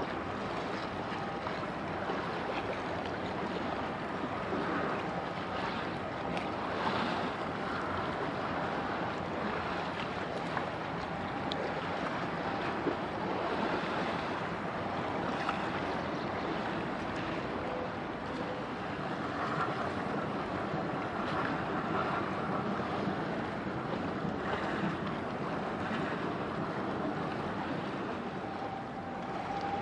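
Steady waterfront noise: wind buffeting the microphone over a wash of water, with faint steady hums underneath.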